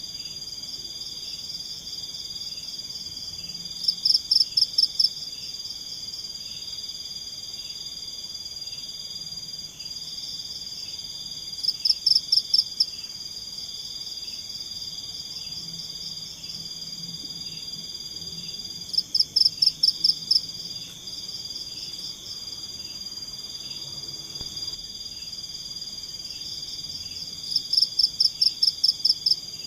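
Night forest chorus of insects and frogs: a steady high drone with a softer pulsing about every 0.7 s. Four times, about 8 s apart, a louder call of eight or so rapid pulses lasts about a second.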